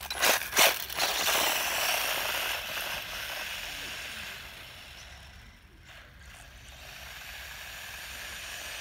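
WLtoys 18429 1:18 RC buggy, converted to a Racerstar 2435 brushless motor, launching with two sharp bursts right at the start and driving off over gravelly asphalt. Its motor, gear and tyre noise fades as it gets farther away until about six seconds in, then grows louder again as it comes back.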